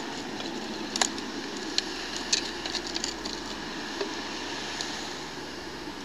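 Short sharp metal clicks and clacks as an old metal cash box is pulled off a fishing magnet, the loudest about a second in and a quick cluster between two and three and a half seconds, over a steady outdoor hiss.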